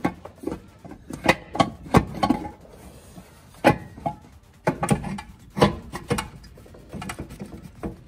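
Irregular metallic clanks, knocks and scrapes as a steel exhaust downpipe is twisted and pulled loose, knocking against the truck's frame and transmission.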